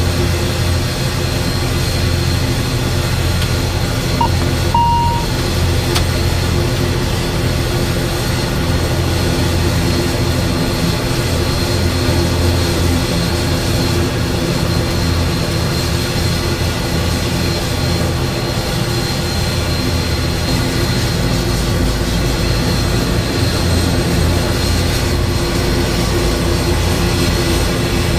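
Steady drone of an ATR 72-600's running number 1 turboprop engine and propeller, heard inside the cockpit. A short electronic beep sounds about four and a half seconds in.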